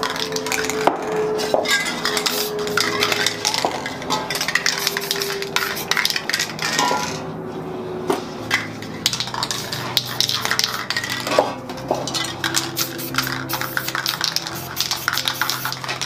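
Clinking and tapping of metal spray cans and painting tools being handled, many short knocks throughout, over background music.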